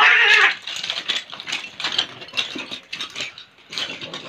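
Two cats fighting: a loud screech as they clash, then a scuffle of short scratchy noises with brief cries as they grapple in dry leaves.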